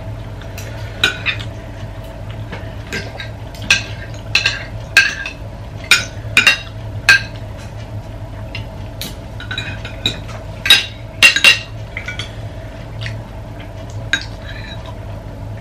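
Metal spoons and forks clinking and scraping against ceramic plates and bowls during a meal, in many short, irregular clinks, over a steady low hum.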